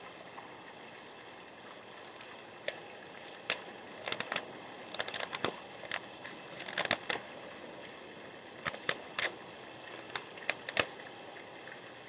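Black bear scraping at ice in a bird bath basin: irregular sharp clicks and scrapes in clusters, starting about three seconds in, over a steady hiss.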